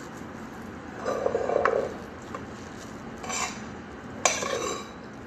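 Fingers scooping rice off a plate, with soft scraping and a few sharp clinks of dishes, the loudest about four seconds in.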